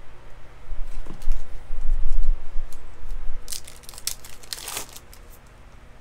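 A trading card pack's foil wrapper being handled and torn open, with the cards inside being handled: dull bumps of handling in the first half, then a burst of crinkling and tearing past the middle.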